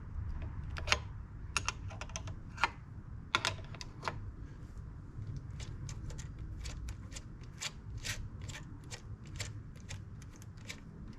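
Small irregular clicks, two or three a second, of a 10mm wrench working loose tuner nuts off a guitar headstock, with a steady low rumble underneath.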